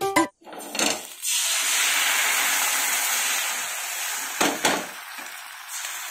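Thin neer dosa rice batter sizzling as it is splashed onto a hot pan: a steady hiss that sets in about a second in and eases a little later on. A couple of short knocks come about four and a half seconds in.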